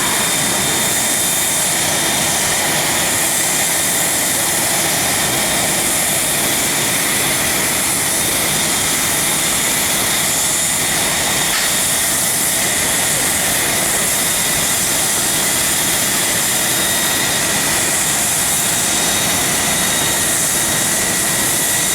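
Jet airliner's turbofan engines running: a steady rushing noise with a high whine held on one pitch.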